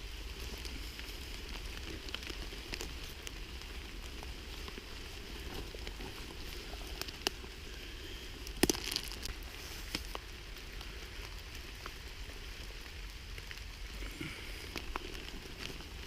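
Steady patter of rain falling in a forest, with scattered small clicks and one sharper snap about halfway through.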